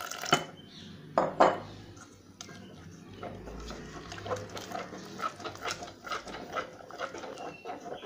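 Wire whisk beating thick gram-flour batter in a stainless steel pan, the wires clicking and scraping against the metal sides a few times a second, with a few sharper knocks in the first second and a half.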